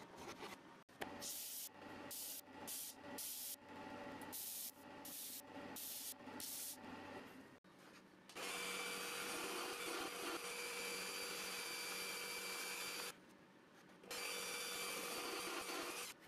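Hand-tool scraping strokes on wood, about two a second. Then a table-mounted power tool runs steadily with a thin whine while cutting a plywood piece, stopping for about a second shortly before the end and starting again.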